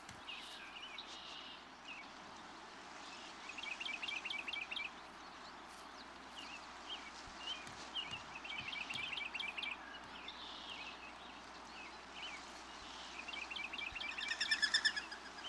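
Mourning doves' wings whistling in flight: rapid fluttering trains of whistled pulses, heard three times, about 4, 9 and 14 seconds in. Scattered short bird chirps sound between them.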